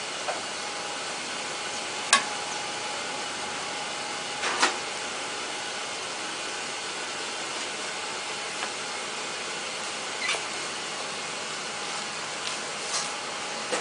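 Steady hiss of a hot round crêpe griddle as batter and egg are spread across it, with a few sharp clicks about two, four and a half and ten seconds in.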